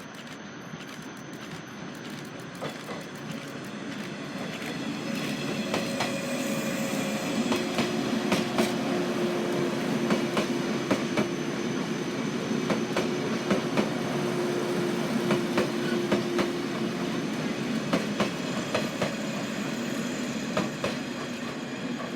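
A train passing, its wheels clicking over rail joints, growing louder a few seconds in. A steady whine carries over the rumble through the middle and fades before the end.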